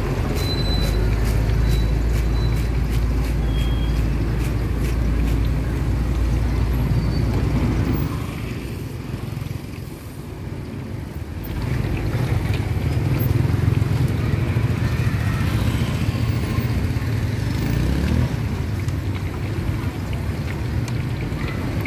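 Low steady rumble of street traffic, easing off for a few seconds about eight seconds in before building again.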